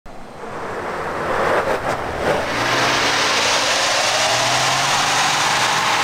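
2021 Ford Bronco Wildtrak's EcoBoost engine running, getting louder over the first two seconds. From about two and a half seconds in it settles into a steady drone under a rushing noise.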